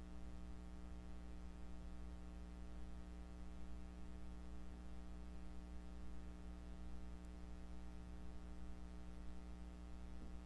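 Steady low electrical hum with a ladder of overtones, over faint hiss, unchanging throughout.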